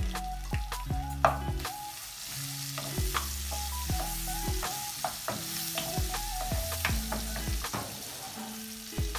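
Julienned ginger and garlic sizzling in hot oil in a nonstick wok, stirred with a wooden spatula that clicks and scrapes against the pan many times at an irregular pace; the sizzle grows stronger a few seconds in. Soft background music with held notes plays underneath.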